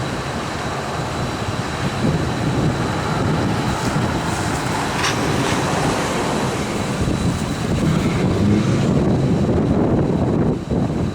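Steady rushing wind and road noise, with wind buffeting the microphone.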